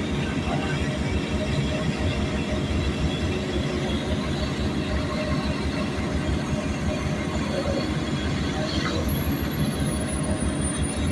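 Heavy tracked earthmoving machines, Komatsu D85SS bulldozers and PC200 excavators, working with their diesel engines running. The sound is a steady low rumble that pulses quickly, with rattling mixed in.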